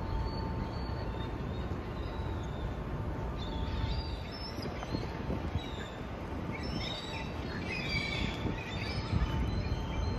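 Steady low rumble of city background noise with birds chirping over it: a few short chirps from about a third of the way in, and a busier run of chirps in the last few seconds.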